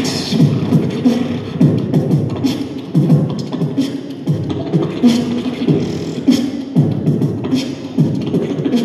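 A beatboxer performing into a microphone through a PA system: a steady beat of deep bass kicks about twice a second, sharp snare and hi-hat clicks, and a held bass tone between the hits.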